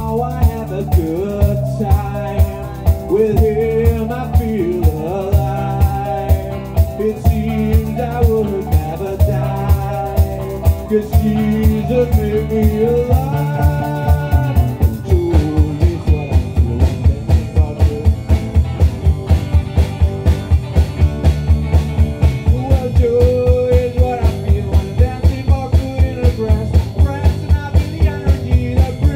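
Live rock band playing an instrumental passage: electric guitar, electric bass, drum kit and keyboard, with a bending lead melody over the band. About halfway through, the drums settle into a faster, steady beat.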